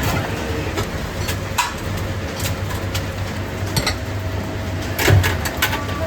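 Working noise of a ramen street stall: a steady low hum and hiss, with several sharp clicks and knocks of utensils and crockery scattered through.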